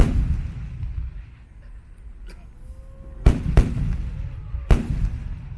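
Aerial firework shells bursting: a sharp bang at the start, two in quick succession about three seconds in, and another near the end. Each is followed by a low rolling rumble.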